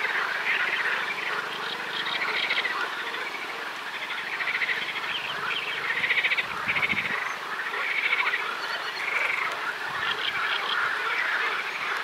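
A chorus of pond frogs croaking: overlapping rattling calls, one after another about every second, with no break.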